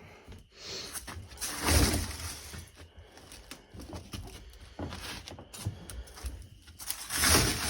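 Soft, rotting boat floor being cut and torn up by hand: irregular cracking, snapping and tearing, loudest about two seconds in and again near the end.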